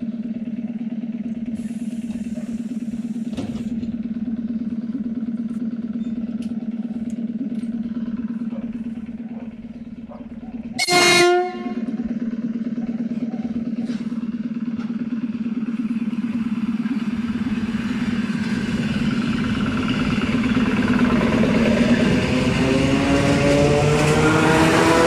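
ER9T electric multiple unit standing with a steady hum, then one short, loud horn blast about halfway through. It then pulls away: a rising whine from the traction motors and growing wheel noise as it picks up speed past the platform.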